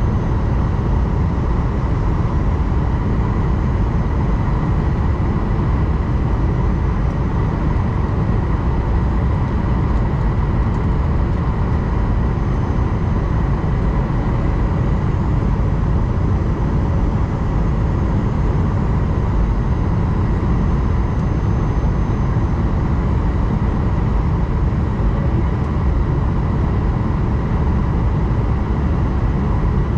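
Steady cabin drone of an Airbus A220-100 airliner, heard from inside the cabin: engine and airflow noise with a faint steady whine above it, unchanging throughout.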